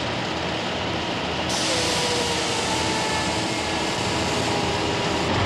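Heavy truck running, heard from inside the cab: a steady drone of engine and road noise with a faint whine. About a second and a half in it turns suddenly brighter and hissier.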